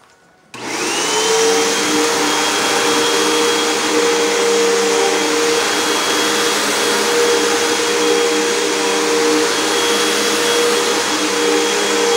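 Vacuum cleaner switched on about half a second in, its motor quickly spinning up and then running steadily with a high whistle over the hum.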